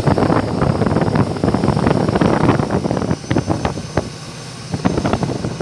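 Speedboat engine running under way while towing a parasail, with wind buffeting and crackling on the microphone; the sound eases briefly a little past the middle.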